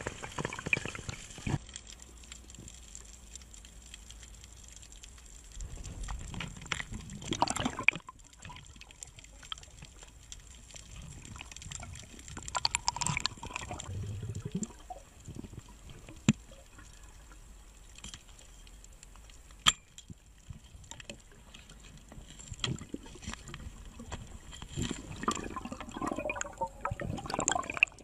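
Underwater water noise from a spearfisher's camera: gurgling and water movement with scattered sharp clicks and knocks, swelling louder several times.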